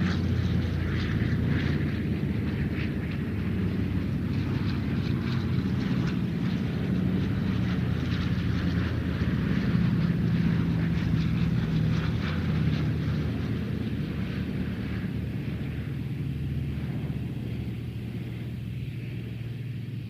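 Propeller airplane flying past: a steady engine drone that is loudest about halfway through, then fades away with its note dropping slightly as it recedes.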